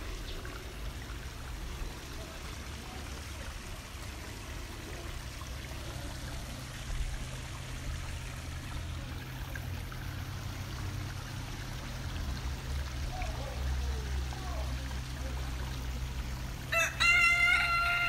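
A rooster crowing once near the end, a loud, high, held call of a little over a second, over a steady low background rumble.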